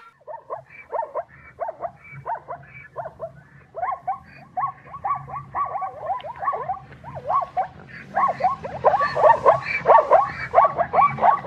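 Zebra calling: a rapid run of short, yelping bark-like calls, about three or four a second, each dropping in pitch, growing louder about two-thirds of the way through.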